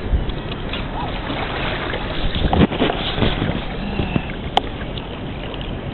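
Steady wind and water noise around a boat, with wind on the microphone. There is a cluster of louder irregular sounds about two and a half seconds in and a single sharp click near the end.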